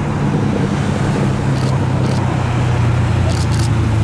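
A classic car's engine running at low, steady revs as it rolls past, growing slightly louder.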